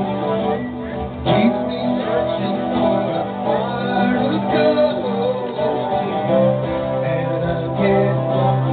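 Live music: guitar playing with a singing voice.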